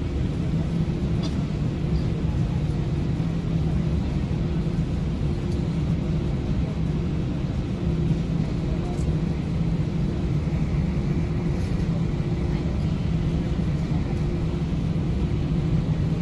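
Airbus A319's jet engines running steadily at low power as the aircraft taxis, heard inside the passenger cabin: an even, low hum with a couple of held low tones.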